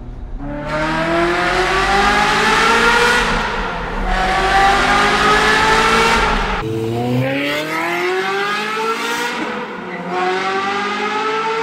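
Ferrari F355's flat-plane V8 accelerating hard through the gears in a tunnel: the revs climb four times, dropping back at each upshift, with a sudden break in the sound about two-thirds of the way through.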